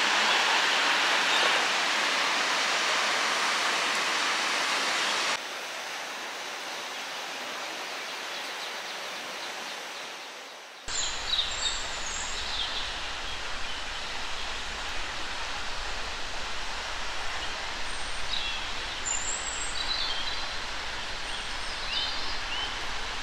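Steady rush of a waterfall. It drops in level about five seconds in and cuts off near eleven seconds, giving way to open-air hiss with a low rumble and scattered bird chirps.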